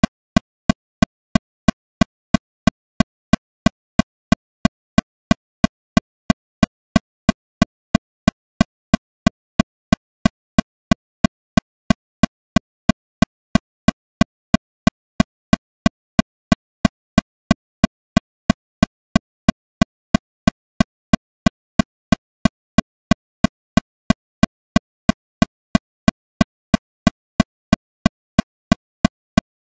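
Metronome clicking steadily at 182 beats per minute, about three short clicks a second with silence between them.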